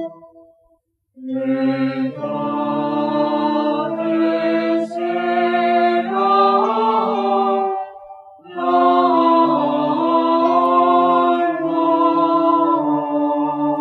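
Background music: sustained, slowly changing chords played in long phrases, breaking off briefly twice.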